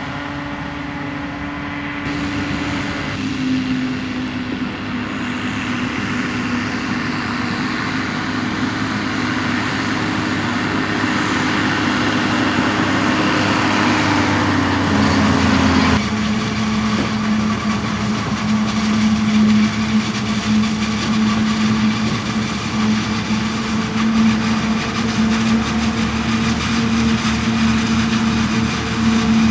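Heavy farm diesels at work: a forage harvester chopping standing corn and tractors hauling silage trailers running steadily. The engine note changes suddenly about 3 and 16 seconds in, dropping slightly just before the second change.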